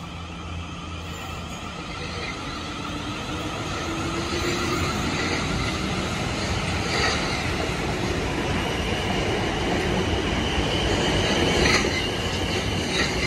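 Multiple-unit passenger train passing close on the adjacent track, its wheels rumbling over the rails with a thin high squeal, growing louder as it goes by.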